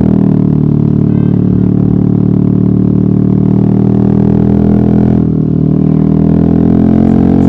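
Yamaha XMAX maxi-scooter's single-cylinder engine running steadily under throttle on the move. It eases off briefly about five seconds in, then picks up again with the pitch rising slightly.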